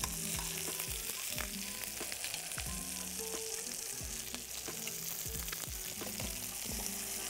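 Chicken breasts frying skin side down in butter and avocado oil in a pan: a steady sizzle with many small, quick pops of spattering fat.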